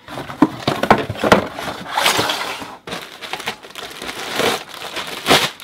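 Plastic packaging bag crinkling and rustling as a starter box is pulled out of it, with a few small knocks of the box against the bench.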